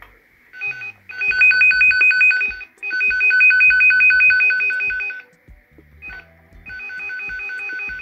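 NOYAFA NF-8209 cable tester's tracer probe sounding its tracing tone: a rapid two-tone warble, like a phone ringing, in three long stretches with short gaps, loudest in the middle.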